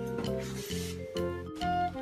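Background music: a bouncy keyboard tune over a steady pulse of bass chords. A short hiss sits under it in the first second, and the music drops out for an instant about one and a half seconds in.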